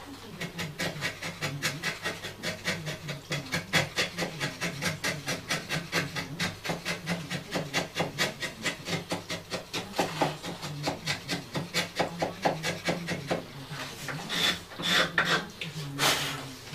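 Hand file rasped back and forth on a small workpiece in quick, even strokes, about four a second, with a few heavier strokes near the end.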